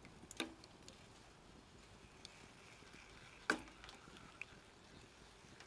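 Knife blade stirring cheese fondue in a small steel pot, knocking against the pot twice, the second knock louder, with a few faint ticks over a low steady hiss.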